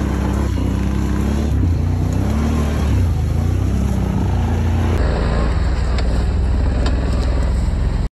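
ATV engines running at low trail speed, the engine note wavering slightly up and down with the throttle. The sound changes abruptly about five seconds in.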